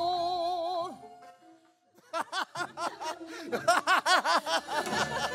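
A female changgeuk singer holds a long sung note with wide vibrato that ends about a second in. After a short pause comes a quick run of high-pitched laughing sounds.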